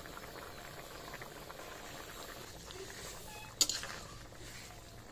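Turmeric-yellow curry gravy boiling hard in an iron kadai, a steady bubbling and popping: the water has come to a full boil, ready for the fish. A ladle knocks once against the pan about three and a half seconds in.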